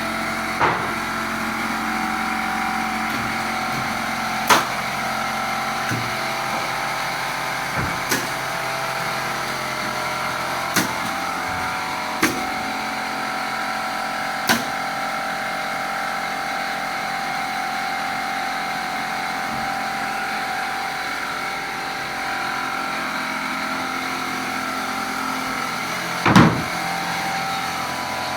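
A motor running steadily with a hum, and sharp knocks or bangs at irregular intervals, the loudest one near the end.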